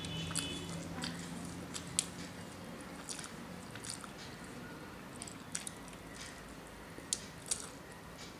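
Close-miked eating: chewing with wet mouth clicks and smacks, and soft squishing as fingers mix rice with vegetable chorchori on a steel plate.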